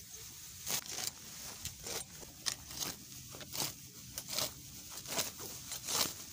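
Long green grass being torn up by hand, a quick ripping snap of stems every half second or so at an uneven pace.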